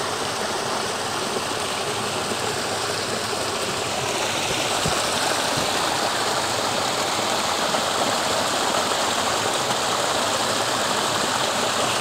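Mountain valley stream flowing steadily, running full with a lot of water coming down.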